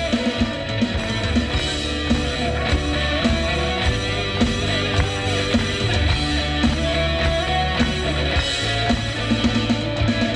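Live worship band playing an instrumental passage between sung lines, with a steady drum beat under sustained chords and a wavering melody line.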